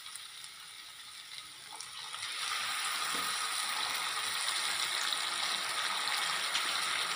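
Water poured into a hot nonstick pan of frying moth-bean dal, setting off a steady hiss and sizzle from about two seconds in. Before that there is only the quieter sound of the dal frying, with a few small clicks.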